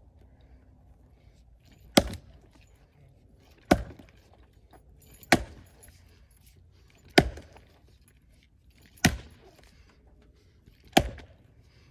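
An axe chopping into a log lying on the ground, six hard strikes about two seconds apart.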